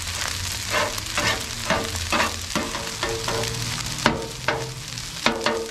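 Metal spatula chopping and scraping rice against the steel plate of a 22-inch Blackstone griddle, about two ringing clanks a second, the loudest about four seconds in, over the steady sizzle of rice and vegetables frying.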